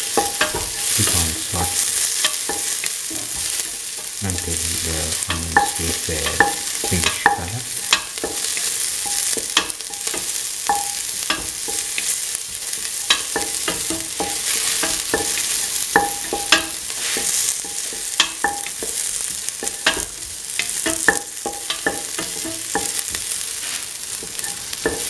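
Chopped onion sizzling in hot oil in a metal pan while being sautéed, with a steady hiss and frequent sharp clicks and scrapes of the spatula against the pan.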